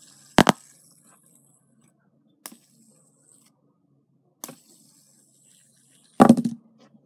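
Fidget spinner handled right against the phone's microphone: a loud double knock about half a second in, single clicks a couple of seconds apart, and a louder cluster of knocks near the end. A faint high whir follows some of the clicks as the spinner turns.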